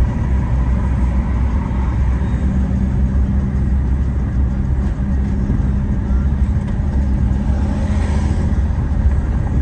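Taxi driving along city streets, heard from inside the cab: a steady low rumble of engine and road noise with an even engine hum.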